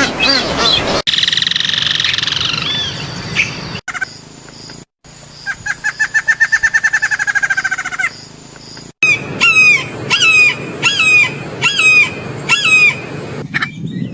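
Bird calls in several short clips cut together: a fast run of about twenty quick notes lasting a few seconds, then a sharp swooping call repeated about seven times in quick succession.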